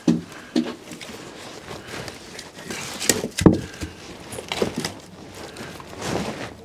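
Pieces of split firewood knocking and clattering against each other as they are pulled loose from a stacked woodpile. The knocks come singly and irregularly, the loudest about three and a half seconds in.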